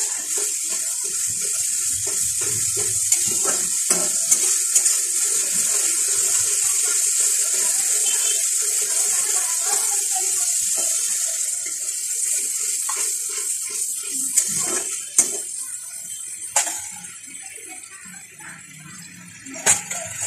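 Grated onion and spice masala sizzling in hot oil in a kadai, a steady hiss while a spatula stirs and scrapes through it. The sizzle dies down over the last few seconds, with a few sharp knocks of the spatula against the pan.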